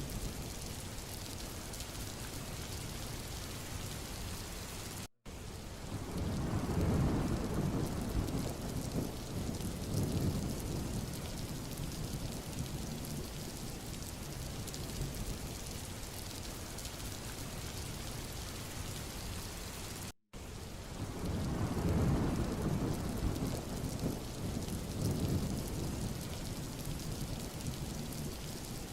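Rain-and-thunder track: steady rain hiss with a low rolling thunder rumble swelling up about a second after each of two brief dropouts, about fifteen seconds apart, the same stretch repeating.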